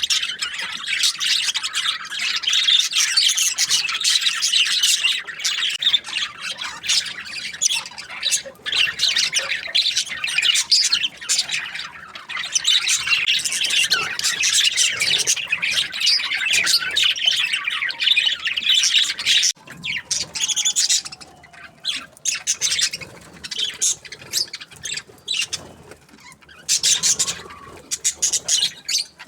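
A flock of budgerigars chattering and chirping with many overlapping short calls, thinning out for a few seconds about two-thirds through before picking up again.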